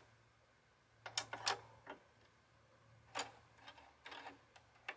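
Plastic push-buttons on an Audio-Technica AT-LP60XBT turntable being pressed, giving a few short clicks about a second in and again in the second half, a sound described as kind of cheap.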